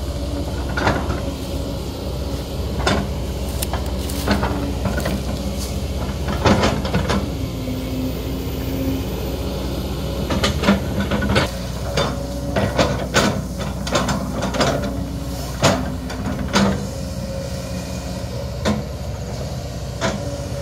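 Kobelco SK200 hydraulic excavator engine running steadily while its bucket digs out eucalyptus stumps. Repeated sharp knocks and cracks of the bucket against roots and soil come thickest in the second half.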